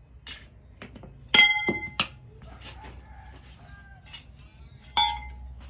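Steel clinking and clanking as pieces of metal are handled and knocked together, with light taps between. A loud ringing clank comes about a second and a half in, and another shortly before the end.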